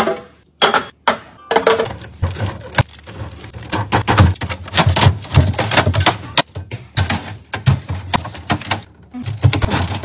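Aluminium soda cans and plastic drink bottles being set into clear plastic fridge organizers and onto shelves: a quick, irregular run of clicks, taps and knocks.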